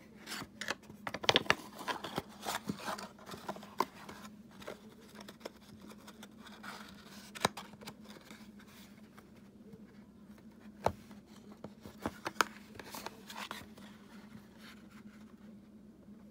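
Handling noise from an empty glass ink bottle and its cardboard box turned and rubbed in the hands: scrapes, rustles and sharp clicks, busiest in the first few seconds, with a few louder clicks later. A faint steady hum runs underneath.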